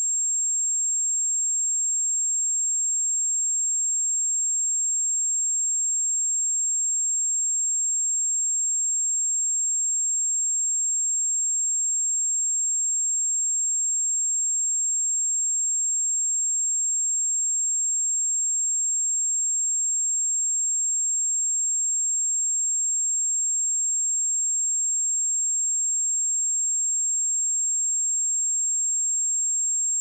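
A pure 7476 Hz sine-wave test tone, a single high-pitched steady tone held at constant level, for checking speakers or headphones.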